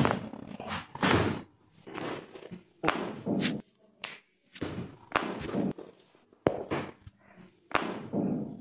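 A series of about a dozen dull thumps, irregularly spaced a little under a second apart, from a chiropractor's manipulation of a patient's neck and back during treatment.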